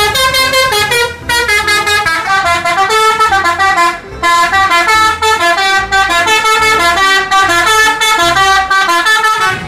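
Indonesian tour bus's multi-tone 'telolet' horn playing a tune of held notes that step up and down in pitch, with short breaks about a second in and again near four seconds.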